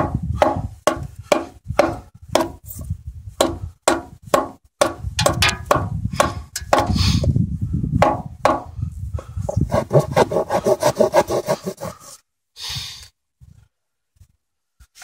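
The saw-back spine of a Glock field knife sawing back and forth in quick, even strokes, about two to three a second, stopping about twelve seconds in.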